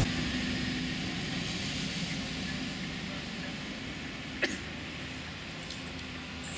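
Diesel railcar moving away along the track, its running noise fading steadily, with one sharp click about four and a half seconds in.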